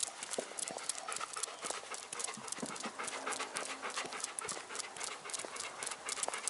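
Golden retrievers panting close to the microphone, with rapid quick clicks of claws on the pavement as they walk.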